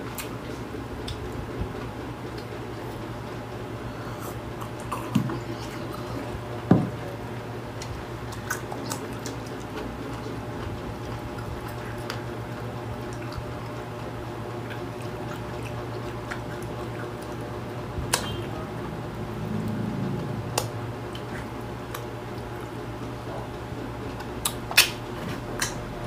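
Close-up eating and drinking sounds: sips and swallows of water, chewing, and a few sharp clicks of glasses and hands on the table, over a steady low hum.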